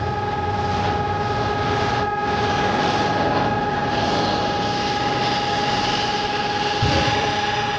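Hörmann ECN 1200 electronic air-raid siren sounding a steady, unwavering tone over a rushing background noise.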